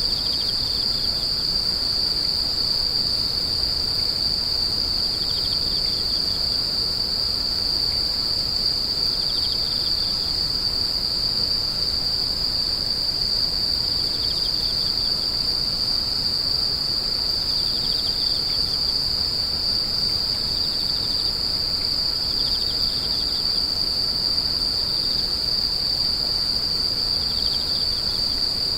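Grass insects chirping: one steady, unbroken high-pitched trill, with short bursts of a slightly lower chirp coming back every four seconds or so.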